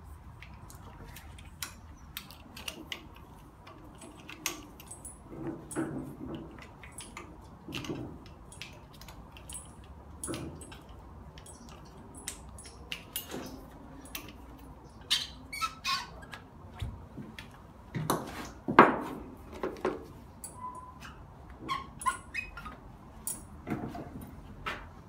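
Gloved hands unclipping plastic wiring connectors and rubber hoses around the throttle body of a Hyundai Accent 1.5 engine: irregular clicks, knocks and squeaks, with the loudest knock about three-quarters of the way through.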